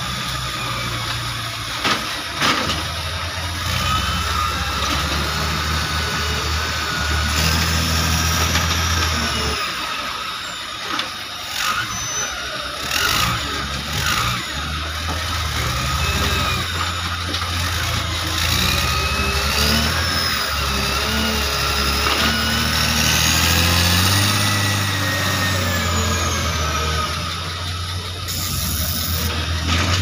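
Diesel engine of a wheeled log loader working under load, revving up and down as it lifts and carries a log. A high squealing slides up and down over it, and a few sharp knocks come around the middle.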